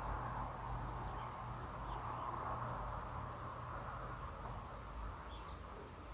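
Daurian redstart giving short, thin, high-pitched call notes at irregular intervals, over a steady background hum.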